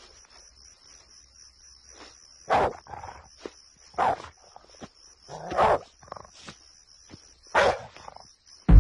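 An animal barking, like a dog, in short calls about every second and a half, with fainter calls between. A steady, pulsing high-pitched chirring runs underneath. A loud low music hit comes in right at the end.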